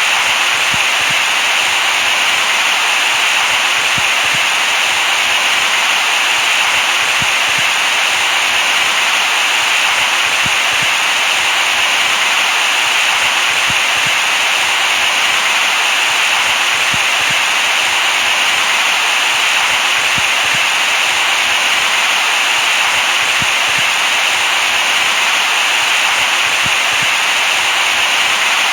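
Steady, unbroken white-noise hiss, brightest in the upper-middle range and thin in the bass, played as a baby-sleep soothing sound.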